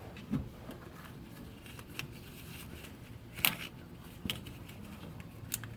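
A new rubber power steering return hose being worked onto its lower fitting by hand: a handful of light clicks and knocks, about five, spread out over a quiet background.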